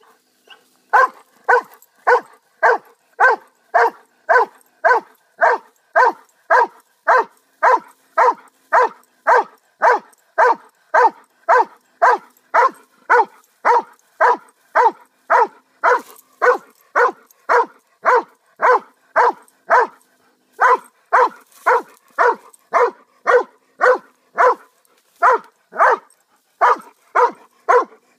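A large dog barking steadily at a cat held at bay, single barks nearly two a second with a couple of brief pauses.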